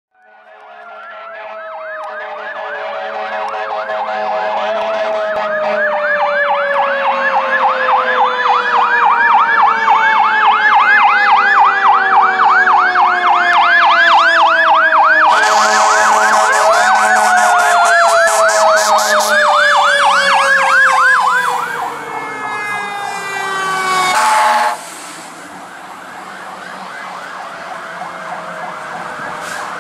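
Fire apparatus sirens: an electronic siren yelping rapidly over a mechanical Q siren that winds down in long falling glides and is wound back up twice. Harsher horn blasts sound in the middle. The sound swells in the first few seconds and drops sharply about 25 seconds in as the trucks pass, leaving a fainter yelp.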